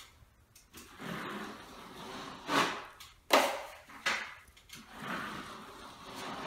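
Steel 14-inch drywall taping knife scraping joint compound, along the ceiling and off the mud pan: a longer smooth pass, then three quick sharp scrapes about a second apart in the middle, then another smooth pass.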